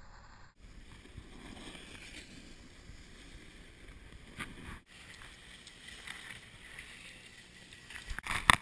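Snowboard sliding over packed snow: a steady scraping hiss with wind on the camera's microphone, dropping out briefly about half a second in and again near five seconds. Near the end come several sharp, loud scrapes and knocks.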